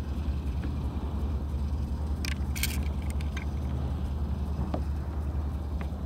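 Steady low rumble of a fishing kayak out on open water, with a few brief sharp clicks and rattles of gear a little over two seconds in.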